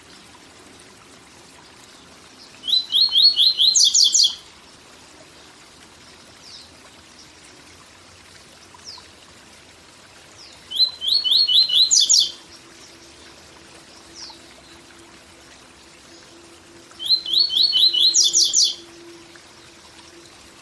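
A papa-capim (double-collared seedeater) singing its 'tui tui zel zel' song three times, each phrase about a second and a half long: a quick run of repeated rising notes followed by higher, buzzier notes, with pauses of several seconds between phrases. A steady waterfall rush runs underneath.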